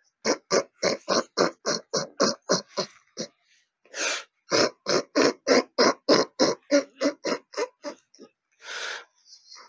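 A man laughing in long runs of short, rapid chuckles, about four or five a second, with a break for breath about three seconds in and another near the end.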